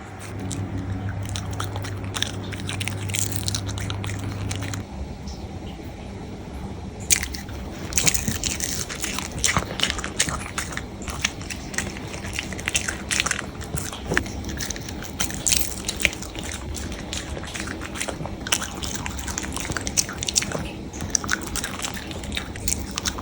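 A small Chihuahua–toy poodle mix dog crunching and chewing dried sardines (iriko), with rapid sharp crunches from about seven seconds in. A steady low hum runs through the first five seconds.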